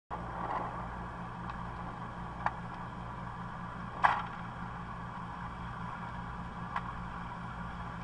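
Pickup truck engine idling steadily with a low hum. A few sharp clicks cut through it, the loudest about four seconds in.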